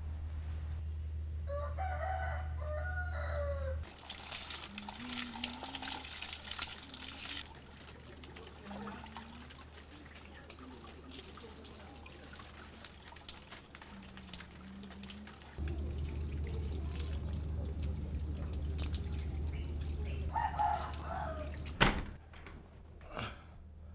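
Water poured and splashing as someone bathes, in uneven pours. Short bird-like chirps come near the start and again near the end, and there is one sharp knock shortly before the end.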